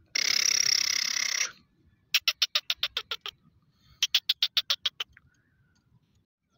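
Black francolin calling: a harsh rasping burst lasting about a second and a half, then two quick runs of sharp clicking notes at about eight a second.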